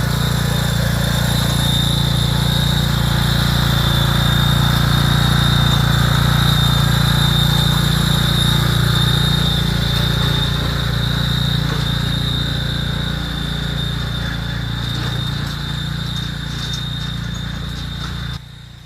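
A failing hydrostatic transaxle (hydro) running with the engine: a steady low hum with a thin, high whine over it. The hydro is worn out and on its way out, and Lucas additive has been put in it to quiet it. The sound drops off abruptly near the end.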